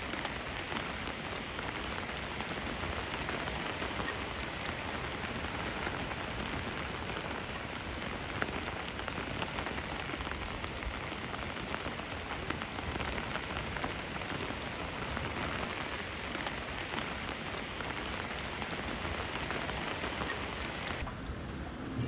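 Steady rain falling on the forest, with the light ticks of individual drops close by.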